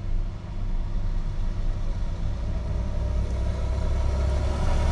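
Volkswagen Crafter van's diesel engine idling, heard from inside the cab as a steady low rumble. Near the end a heavier vehicle's rumble swells in.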